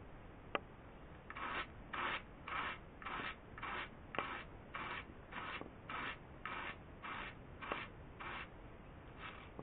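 Wool being hand-carded: wire-toothed wooden wool cards drawn across each other in a steady rhythm of scratchy strokes, a little under two a second, starting about a second in. Three sharp clicks stand out, the first just before the strokes begin.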